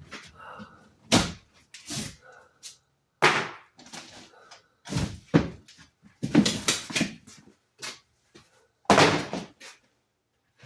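Wall demolition in a fire-damaged room: a series of irregular heavy thuds and crashes as wall material is knocked out and falls, with a longer clattering stretch a little past the middle.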